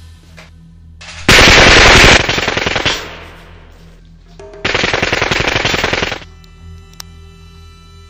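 Two bursts of rapid automatic gunfire, like a submachine gun. The first comes about a second in, very loud for about a second before it trails off. The second comes a few seconds later and lasts about a second and a half.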